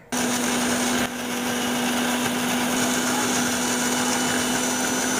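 Electric mixer grinder switched on and running steadily, grinding mustard seeds and green chillies with salt into a paste. It starts abruptly, dips briefly about a second in, then runs on with a steady motor hum.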